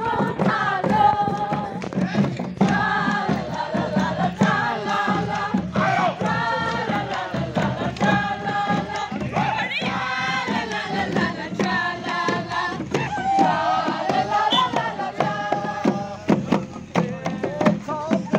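A group of voices singing and chanting together as they walk, over hand-beaten long wooden drums striking a frequent beat.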